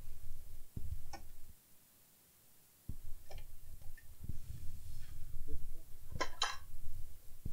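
A circuit board being handled on a workbench: a low rubbing rumble with a few light clicks, then a louder double clatter about six seconds in as the board is set down.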